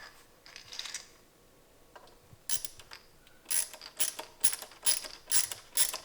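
Ratcheting hand tool clicking as it unscrews the bracket screws on an LED light bar: a few scattered clicks, then from about halfway a regular run of ratchet strokes, about two a second.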